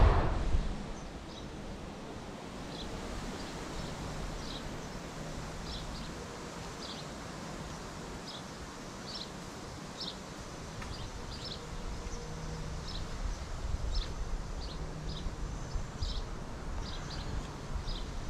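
A brief blast of wind on the microphone at the very start gives way to quiet outdoor ambience, with short high-pitched chirps repeating roughly once a second.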